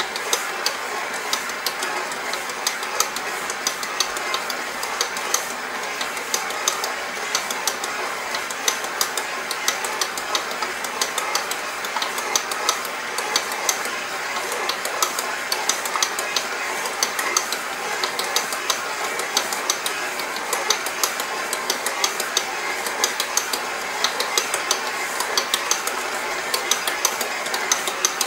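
KitchenAid KSMC895ER commercial stand mixer running steadily on speed 2, its dough hook kneading stiff, still-dry pizza dough in the steel bowl. A constant motor-and-gear whir is dotted with many quick little ticks and knocks.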